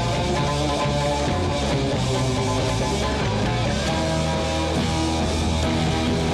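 Background rock music with electric guitar, playing steadily.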